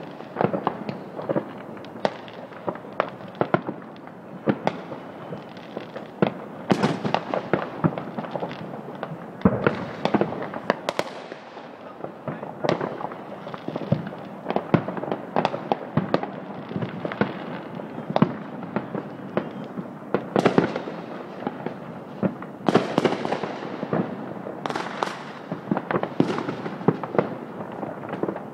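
Many amateur fireworks going off at once: an unbroken crackle of firecrackers and small bangs, with louder sharp bangs from aerial shells every second or two.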